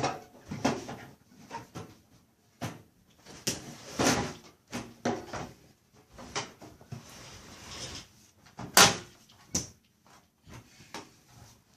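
Irregular knocks and clatters from a desktop computer case being handled, with its cover panel being fitted; the sharpest, loudest knock comes about nine seconds in.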